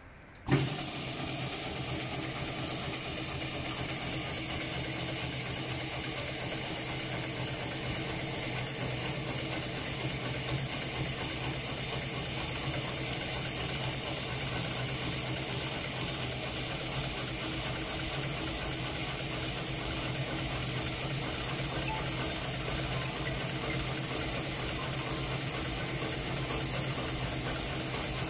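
HighTex 71008R heavy-duty automatic rope bar-tacking sewing machine running a programmed stitch cycle to sew two ropes together, a steady hiss over a low motor hum. It starts with a sharp click about half a second in.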